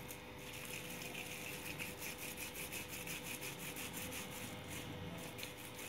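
Hands rolling and pressing soft muthiya dough of grated bottle gourd and flour between oiled palms: a faint, quick run of soft rubbing and squishing strokes, over a faint steady hum.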